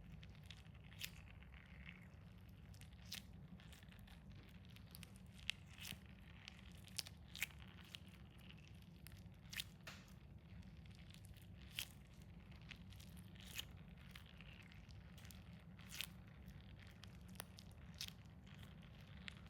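Stress ball being squeezed, giving sharp separate pops every second or two with a soft crunch between them, over a low steady hum.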